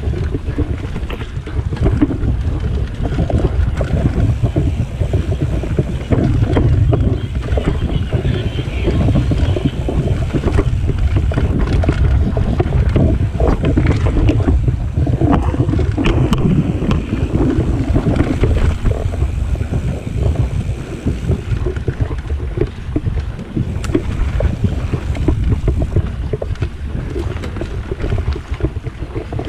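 Mountain bike riding fast down a dirt singletrack, with heavy wind rumble on the microphone and a constant run of rattles and knocks from the bike and tyres over the rough trail.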